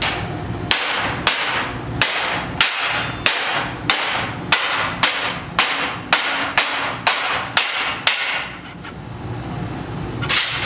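A hammer strikes a sheet-steel patch panel clamped in a bench vise, forming it into shape. The blows come in a steady run, a little under two a second, each with a short metallic ring. After about eight seconds they pause, and one last blow lands near the end.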